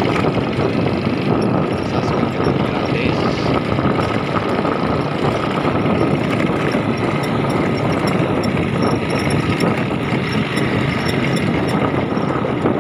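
A motorcycle running steadily while it rides along a bumpy dirt track.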